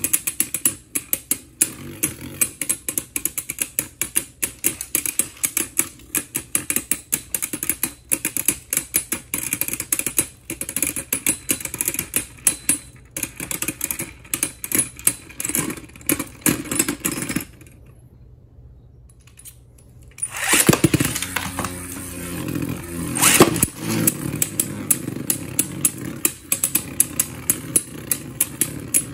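Two Beyblade spinning tops whirring in a plastic stadium and clashing over and over: a rapid, uneven clatter of sharp clicks over a steady hum. The clatter stops for about two seconds past the middle, leaving only a faint hum, then picks up again with a few louder hits.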